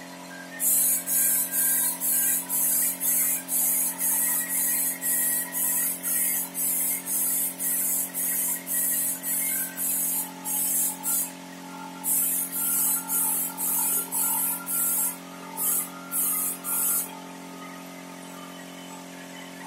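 Compressed-air spray gun for wood polish hissing in short, regular bursts, about two a second, as the trigger is pulsed. After a brief pause the bursts resume, the last few shorter, and then they stop. A steady low hum runs underneath throughout.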